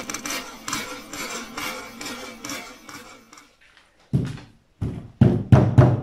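Background music fading out, then about five knocks on the top of a model microwave built from wooden matchsticks, coming closer together toward the end.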